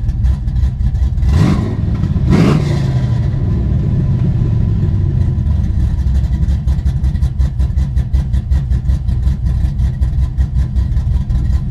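Cammed 6.0 L V8 of a 2006 Pontiac GTO (Tsunami cam, long-tube headers, Flowmaster exhaust, K&N cold air intake) running, heard from inside the cabin. It is blipped twice in quick succession about a second and a half in, then settles back into an uneven, loping idle.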